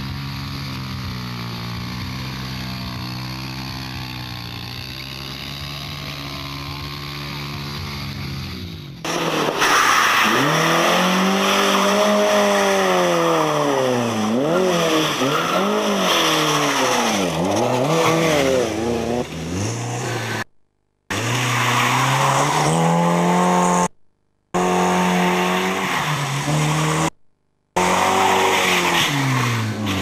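Racing engines revving hard, their pitch swinging up and down through corners, with tyres squealing, in several clips cut together with abrupt short silences between them. For the first nine seconds a single engine is held at steady high revs while a motocross bike spins its rear wheel in a smoky burnout.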